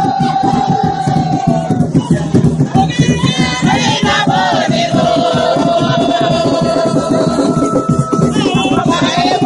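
Garifuna Wanaragua drum music: hand drums beating a fast, dense rhythm under a group of voices singing long held notes, with crowd noise around it.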